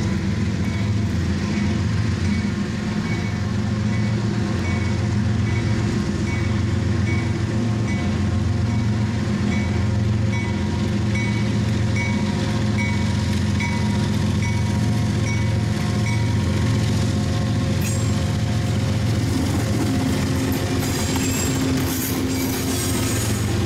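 Diesel freight locomotives approach and pass with a steady engine drone, while a grade-crossing bell rings about twice a second. The bell stops after about 16 seconds, and near the end the wheels on the rails add a loud rushing clatter.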